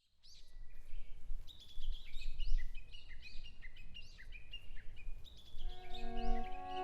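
Songbirds singing, a busy run of short chirps and whistles rising and falling in pitch, over a low rumble. Near the end an instrumental introduction of held notes on piano and viola comes in under the birds.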